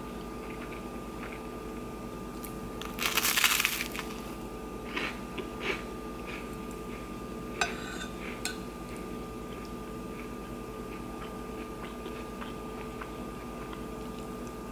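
Close-up eating sounds: a crunchy burst about three seconds in, then a few light clicks and a sharp ringing clink as a metal spoon scrapes and taps a ceramic plate while scooping corned beef hash, over a steady faint hum.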